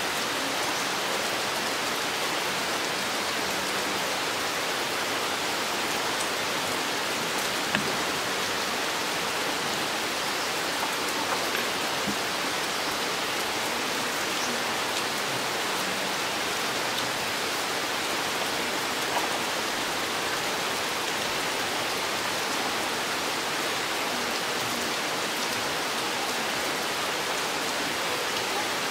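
Steady rain falling through a forest, an even hiss of drops on leaves and ground, with a few sharper single drop ticks scattered through.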